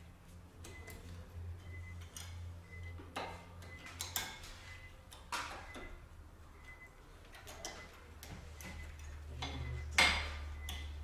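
Hand work on a car's brake caliper and pads: scattered metallic clicks and knocks, the loudest near the end, with a faint, evenly repeating ticking and a low steady hum in the background.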